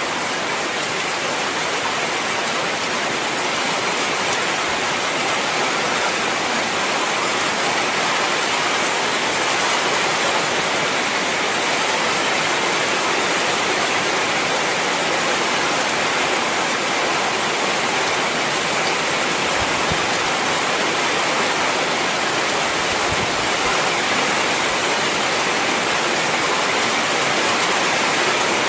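Heavy rain pouring steadily, a dense, even hiss of water.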